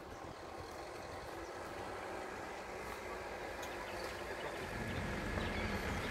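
A motor vehicle's engine running, growing gradually louder, with a deeper hum coming in about five seconds in.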